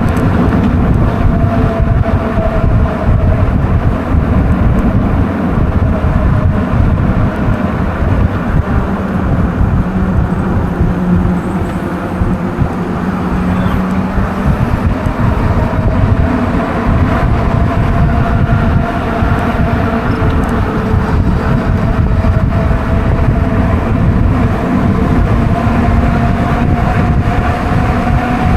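Riding an e-bike on a wet road: wind rumbling on the microphone and tyre noise, with a steady whine from the e-bike's motor that drifts a little higher in pitch in the second half.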